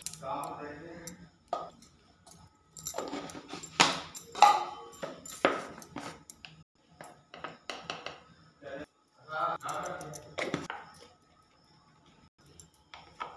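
Plastic spice-container lids clicking and knocking as small jars of masala powder are opened and handled, with a few sharp snaps in the middle. A voice talks briefly at the start and again near the end.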